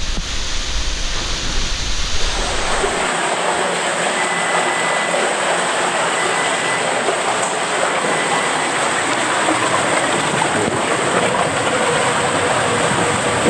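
After about two seconds of low rumble, a loud, steady rush of flowing water fills an enclosed body-slide tube, heard from inside. It stays even to the end, with no clear knocks.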